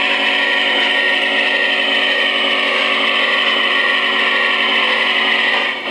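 Onboard sound system of an O-gauge model Norfolk & Western Class J steam locomotive blowing one long, steady multi-toned whistle, which cuts off sharply just before the end.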